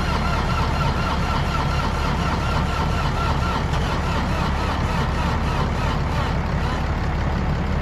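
Cold Bobcat excavator diesel being cranked over on its starter, a steady whine over a low rumble, turning but not catching, though the fuel is starting to ignite. The starter whine stops about six and a half seconds in.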